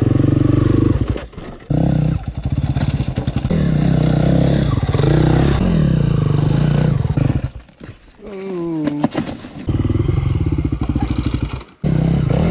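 Four-stroke KTM enduro dirt bike engine revving up and down under riding throttle. The sound drops out abruptly three times: about a second in, near eight seconds and near the end.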